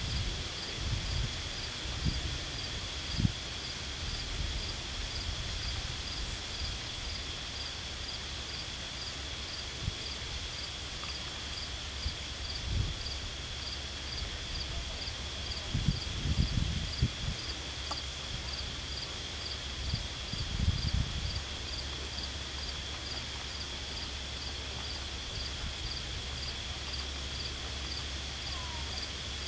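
Insects chirring in a steady high even tone, with a regular chirp repeating above it. A few low bumps and rumbles stand out near the start and again about halfway through.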